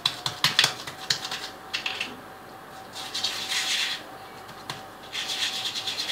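Hands in plastic gloves working cookie dough: a few light taps and clicks in the first second, then two short rubbing, scraping passes, about a second each, as a plastic cookie cutter is pressed and twisted through dough on the counter.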